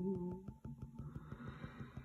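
A sustained, steady-pitched vocal hum that stops about half a second in, followed by a quiet pause with a faint breathy hiss.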